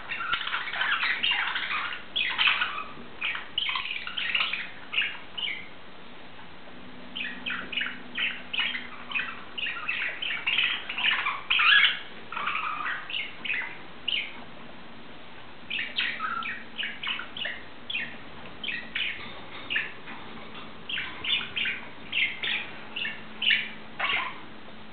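Budgerigar chirping and chattering in runs of quick, short calls, broken by brief pauses.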